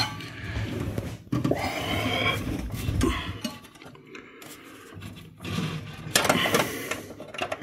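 Metal clinks and scraping as an Ethernet cable's plug is worked against a PC case's metal expansion-slot bars and the network card's bracket, trying to seat it in the card's port. A sharp click at the start, a clatter of handling about a second and a half in, and more scraping about six seconds in.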